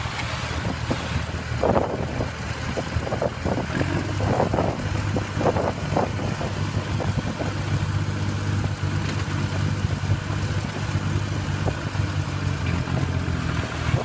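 Small crawler dozer's engine running steadily under load as the machine works up steel loading ramps onto a flatbed truck. Short metallic clanks come from the tracks and ramps over the first half.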